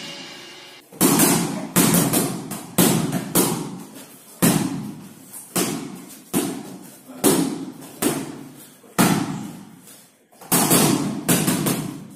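Boxing-glove punches landing with sharp thuds in irregular runs of one or two a second, each echoing on briefly in the hall; a short pause comes a little before the end.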